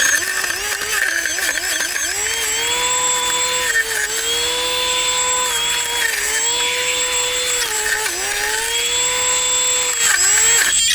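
Brushless drone motor spinning a 3D-printed cutting blade: a high whine that sags in pitch and recovers about every two seconds as the blade bites into grass, with the noisy hiss of stems being cut.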